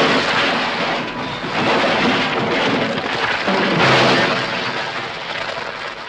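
A car tumbling down a rocky cliff face: repeated crashing impacts with rock and debris sliding after it. The crashing is loudest about four seconds in and fades toward the end as the wreck comes to rest.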